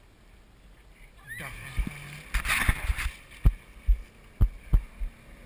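Hollow knocks and thumps on a small aluminum boat's hull as people climb aboard and shift their weight, about four sharp thumps in the second half, after a brief burst of scraping or rustling noise.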